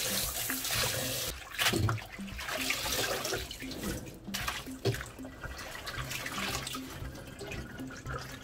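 Tap water running into a stainless steel bowl while hands rub and squeeze mallow leaves in it. The rush of the tap stops about a second and a half in, leaving splashing and sloshing as the leaves are worked to wash out their slimy green juice.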